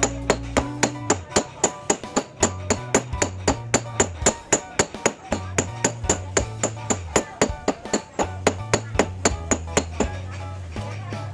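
Hammer beating a steel wire fish hook into shape on metal, in quick sharp strikes about four or five a second that ease off near the end.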